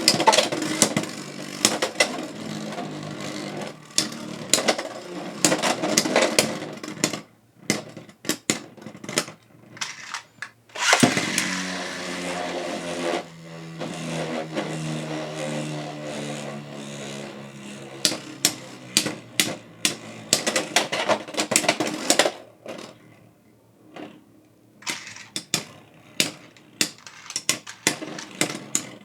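Beyblade X spinning tops battling in a plastic stadium: many sharp clacks and knocks as they collide. About eleven seconds in, a launch sets off a spinning whir that slowly drops in pitch as the top spins down.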